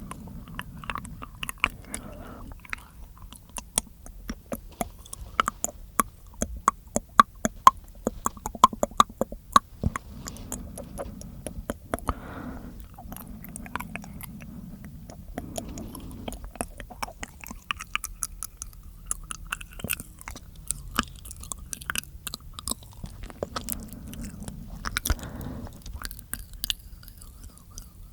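Close-miked wet mouth sounds: rapid tongue clicks and lip smacks, dense at first and sparser later, with a few soft breaths between them.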